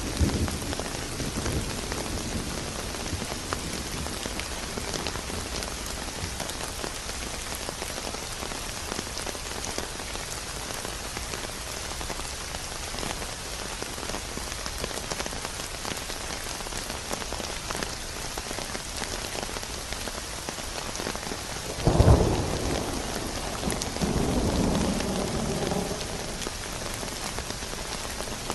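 Steady rain pattering, with a fading thunder rumble at the start. About three quarters of the way through, a sudden sharp thunderclap is followed a couple of seconds later by a rolling rumble.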